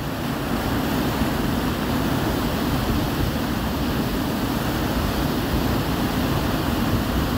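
Swollen river in flood rushing steadily past: a constant wash of fast, turbulent white water.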